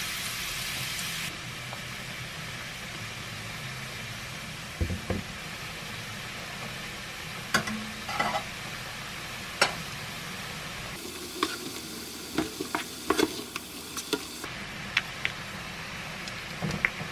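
Tomato sauce sizzling in a frying pan while a spatula stirs pasta through it, with scattered taps and scrapes of the spatula against the pan, clustered near the middle.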